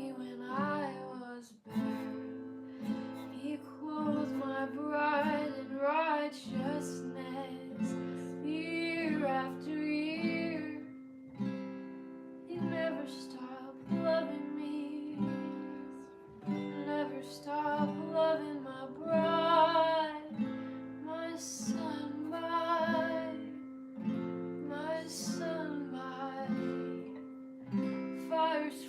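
Music: a voice singing wavering phrases over strummed acoustic guitar chords.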